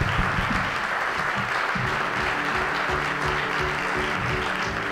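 An audience applauding. About two seconds in, music comes in and plays under the applause.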